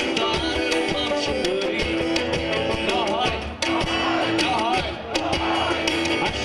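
Live Celtic-folk band playing a tune on acoustic guitar, fiddle and drums, with a steady drum beat under a held note and a wavering fiddle line.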